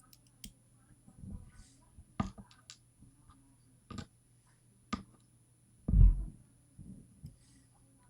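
Scattered small clicks and taps of lock pins and tweezers being handled on a work surface, with one louder, deeper thump about six seconds in.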